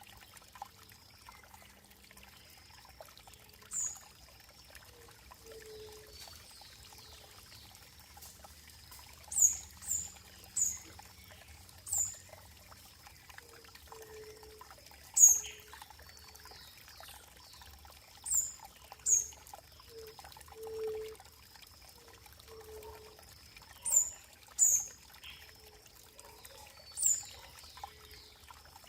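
Running water trickling and pouring steadily and softly. Over it come about a dozen short, high bird chirps, each dropping in pitch and much louder than the water.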